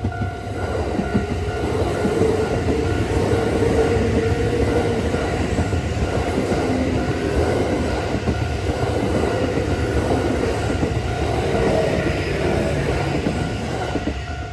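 A ten-car Kintetsu electric train, with 8400, 8600 and 1233 series sets coupled together, running past a level crossing. Its running noise swells about half a second in, stays loud for about thirteen seconds and drops away near the end as the last car clears.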